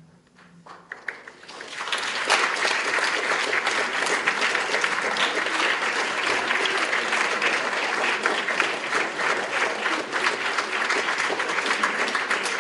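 Audience applauding: a few scattered claps about a second in, swelling into full, steady applause by about two seconds.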